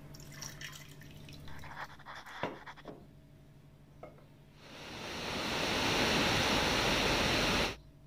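Light clinks and knocks of glassware being handled on a granite countertop, then water poured from a glass carafe into a drinking glass: a steady splashing pour that swells over about a second, runs for about three seconds and cuts off suddenly near the end.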